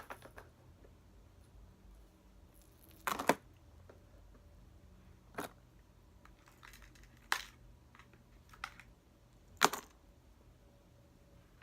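Scattered sharp clicks and light knocks of small hard objects being handled: a double click about three seconds in, then single ones spaced a couple of seconds apart, the last and sharpest near the end, over quiet room tone.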